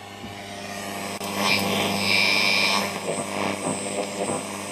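Homemade long-wave TRF radio receiver playing through a small loudspeaker: hiss and static over a steady hum, with high whistling tones, growing louder about a second and a half in. Reception is weak and buried in noise.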